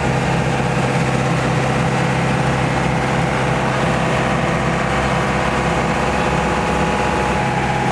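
Boat engine running steadily at a constant speed, a loud even hum with a held low tone.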